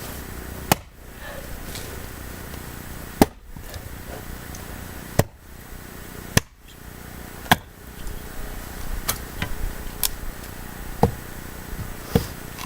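Axe chopping firewood by hand: about nine sharp, separate blows on wood, spaced irregularly one to two seconds apart.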